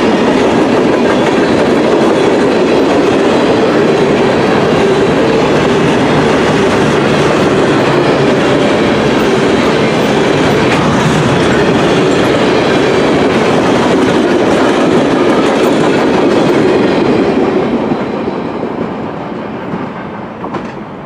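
Norfolk Southern freight train of trash-container flatcars rolling past, a steady rumble of wheels on rail; it fades away over the last few seconds as the end of the train goes by.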